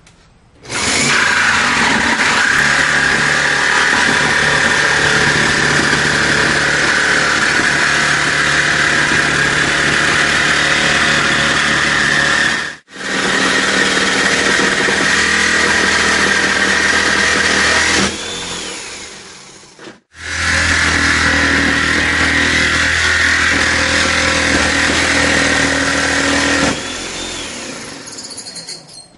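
Electric power saw running steadily while it makes the rough cut through a door for a pet door opening. The sound comes in three long stretches, cutting off abruptly twice and dying away gradually at about 18 seconds and again near the end.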